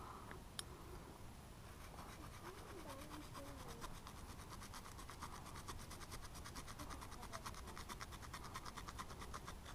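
Faint hand pruning saw cutting through a branch in fast, even rasping strokes, starting about two seconds in. A single sharp click comes just before the sawing starts.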